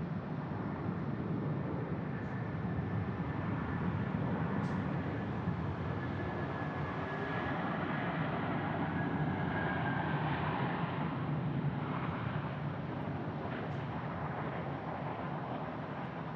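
Jet airliner passing at the airport: a steady engine rumble that swells to a peak about ten seconds in and then slowly fades, with a faint whine falling slightly in pitch.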